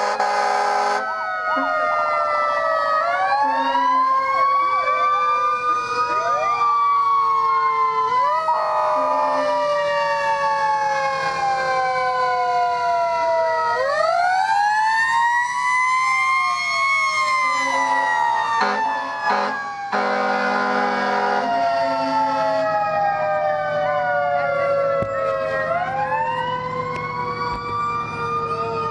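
Fire truck sirens wailing, several overlapping. Each winds up quickly and then falls slowly in pitch over several seconds. Short, steady horn blasts cut in now and then.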